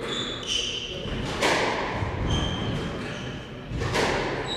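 Squash rally: sharp hits of racket and ball against the court walls, ringing in the enclosed court, the two loudest about a second and a half and four seconds in. Short high squeaks of court shoes on the wooden floor come between the hits.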